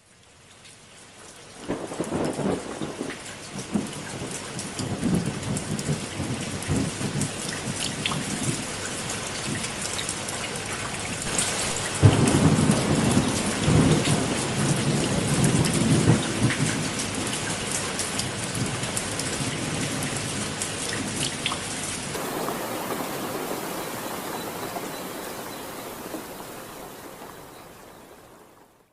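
Dense, loud water noise with deep rumbling through it, loudest about halfway through; near the end it cuts to a thinner, hissier stretch of the same kind.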